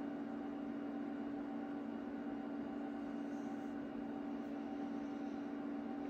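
Steady drone of a rack of powered-up HP test instruments: cooling fans and electrical hum, a constant low hum with a few held tones over a soft hiss.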